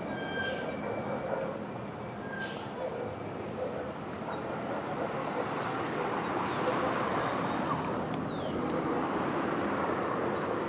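Birds calling: repeated short high chirps and several quick downward-sliding whistles over a steady noisy background.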